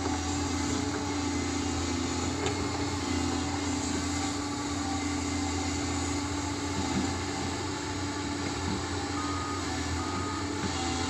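A steady, unchanging engine drone with a low hum.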